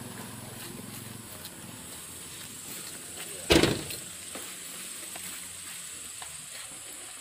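Low vehicle rumble that fades out in the first second or so. Then a single loud bang about halfway through, over steady background noise.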